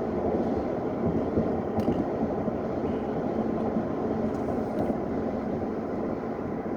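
Steady road and engine rumble heard from inside a moving car's cabin, with one short sharp tick about two seconds in.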